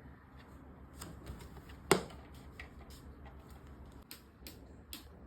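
Irregular light clicks and taps, with one sharper knock about two seconds in.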